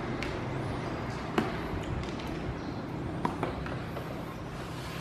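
A few light plastic clicks and knocks as a toddler handles the lid of a clear plastic food box on a wooden floor, over a steady low room hum.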